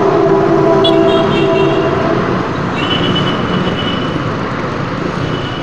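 Road traffic noise with a long steady horn-like tone that stops about two seconds in. A thin high whine comes and goes after it.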